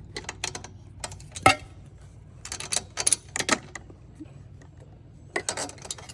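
Hand wrench working on steel bolts: irregular groups of metal clicks and clinks, the sharpest about one and a half seconds in.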